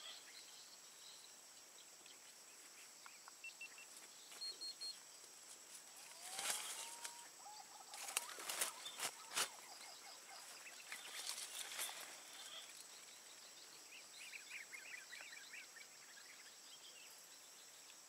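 Quiet outdoor ambience: scattered small bird chirps and a short gliding call over a steady high whine, with a few bursts of noise and sharp clicks in the middle.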